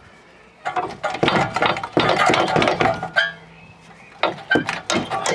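Rapid metallic clinking and rattling as parts of a car's rear suspension and hub are worked loose by hand, sped up. It comes in two busy bursts with a short lull in the middle.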